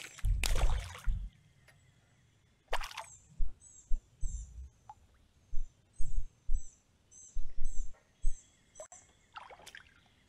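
Small water splashes and low thumps around a small fishing boat, with a splash near the end as a bass takes the line and is hooked. A bird calls through the middle in a quick series of short high chirps, about two or three a second.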